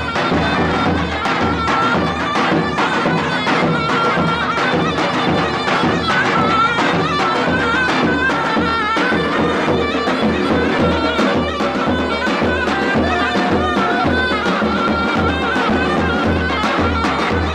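Davul bass drum and zurna playing a folk dance tune: a shrill, wavering double-reed melody over a steady, even drum beat.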